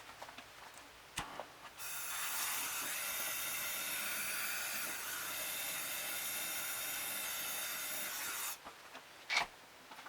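A steady hiss of gas escaping under pressure, starting suddenly about two seconds in and cutting off after about seven seconds. A few light knocks come before and after it.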